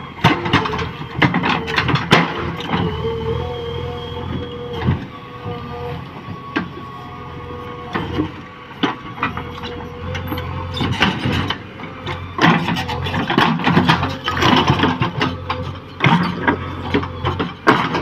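JCB backhoe loader's engine running under load, with frequent knocks and clatter as the bucket works stony ground. A steady whine from the machine is heard during the first five seconds.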